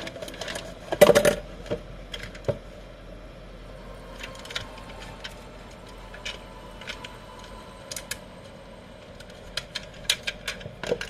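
Handling noise from a toy model car and its cardboard box: a loud cardboard scrape about a second in as the car slides out, then scattered small clicks and taps of the plastic and metal toy being turned in the hands, thicker near the end.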